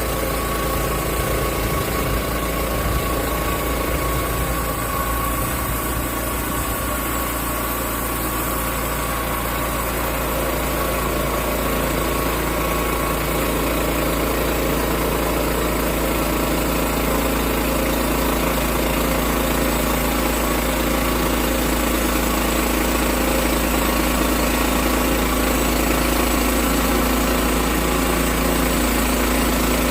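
Engine of a portable sawmill running steadily, its pitch holding constant, growing slightly louder over the stretch.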